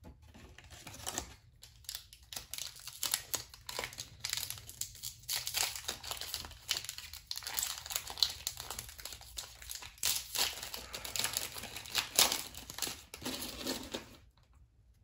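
Foil trading-card booster pack wrapper crinkling and crackling as it is handled and torn open, in irregular crackly bursts that stop near the end.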